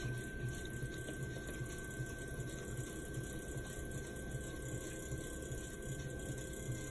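Electric pottery wheel motor running steadily, turned down from full speed for opening the clay: a low, even hum with a thin, steady high whine.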